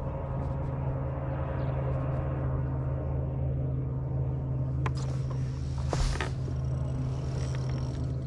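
Bass boat's motor running with a steady low hum, with a sharp knock about five seconds in and a brief rush of noise about a second later.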